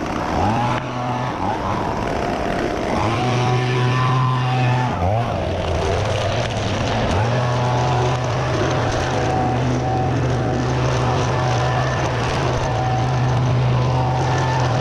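Gas string trimmer running at high throttle and cutting overgrown grass and weeds, its engine dropping in pitch and revving back up a few times, about half a second in, around five seconds and around seven seconds.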